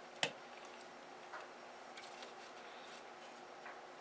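Small plastic parts being handled: a sharp click about a quarter second in, then a few faint ticks, as the wiring and battery are pressed down into the plastic work-light housing.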